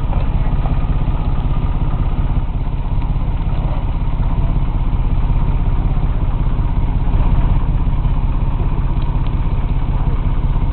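Boat engine running steadily at low speed, a continuous low throbbing.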